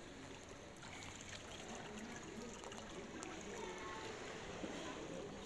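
Pool water sloshing and lightly splashing as children swim and kick in shallow water, with faint distant voices.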